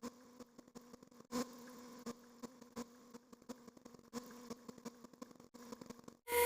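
Washing machine audio played sped up: a steady low hum with many scattered clicks and a few louder knocks, then a sudden loud beep near the end.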